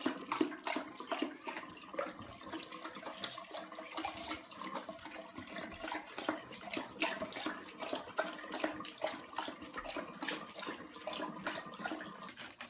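Water running from a faucet into a bathroom basin while a bulldog laps at the stream, making many quick, irregular splashes.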